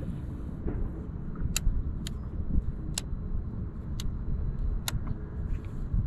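A steady low rumble with four sharp clicks about a second apart.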